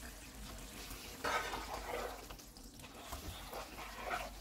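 A plastic spatula stirring kababs through thick simmering gravy in a nonstick pan, in two short bouts.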